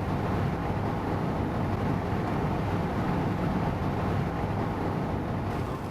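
Steady rumble of a vehicle driving, road and engine noise without distinct events, dropping away just before the end.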